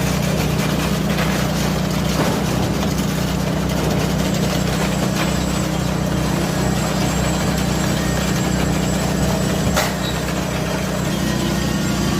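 Engine of concrete-pouring equipment running steadily at a constant speed, with one sharp knock about ten seconds in.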